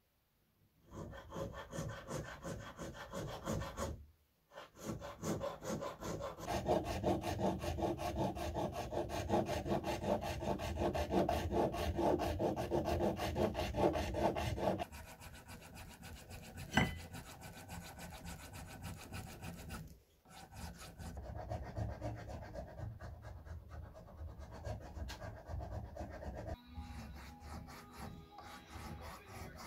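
Hand filing on a small piece of a knife sheath: rapid back-and-forth file strokes, with two short pauses. The strokes are louder in the first half and lighter after about fifteen seconds, and there is a single sharp click just past the middle.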